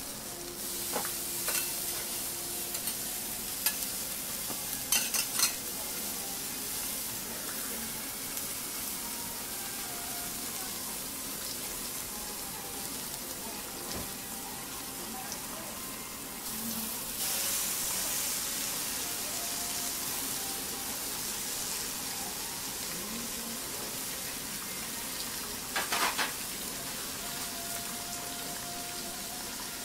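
Food sizzling on a hot flat steel teppan griddle, a steady frying hiss that swells louder for a few seconds just past halfway. A few sharp clicks cut through it, near the start, about five seconds in and again near the end.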